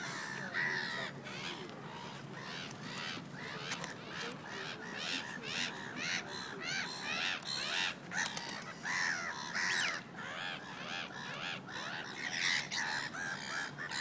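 Birds calling: a rapid, busy series of short high calls that come in clusters, thickest around the middle and near the end.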